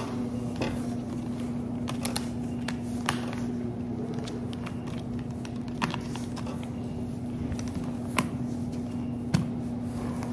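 Plastic alpine ski boot buckles and straps being handled and fastened: scattered sharp clicks and small plastic rattles, about seven distinct clicks, over a steady hum.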